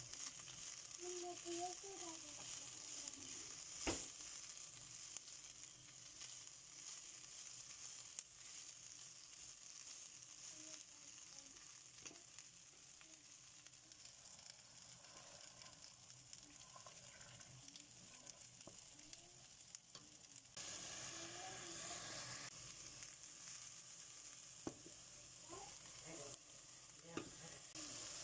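Chopped okra frying in a non-stick pan, a steady, faint sizzle that grows louder about two-thirds of the way through. A few sharp knocks of a wooden spatula against the pan.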